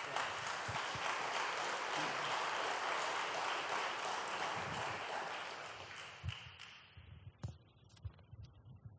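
Congregation applauding, steady for about six seconds and then dying away, with a few scattered claps near the end.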